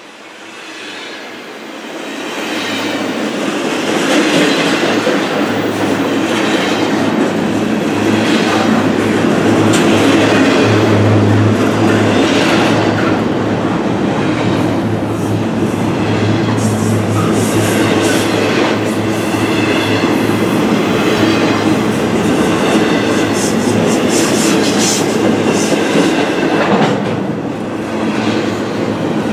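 Union Pacific double-stack intermodal freight train rolling past close by: steady steel-wheel-on-rail noise with repeated clicks and clanks from the well cars. It builds up over the first few seconds, then holds loud.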